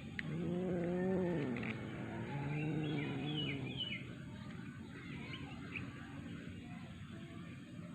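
Domestic cat giving two long, low yowls, each rising and then falling in pitch: the warning yowl of an aggressive cat.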